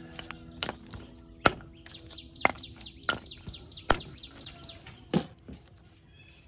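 A steel cleaver chopping cooked mud crab on a wooden chopping block: about six sharp, unevenly spaced chops. In the middle a bird calls a quick run of about a dozen down-slurred chirps.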